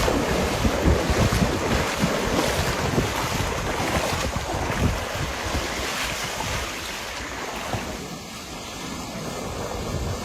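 Wind buffeting the microphone over a rushing wash of water. The buffeting eases a little near the end.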